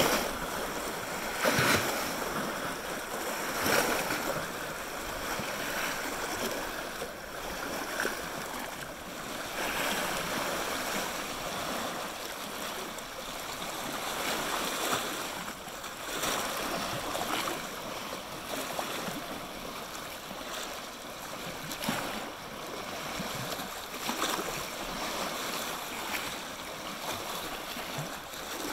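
Small lake waves lapping and splashing against flat sandstone ledges: a steady wash of water, with a short splash every couple of seconds.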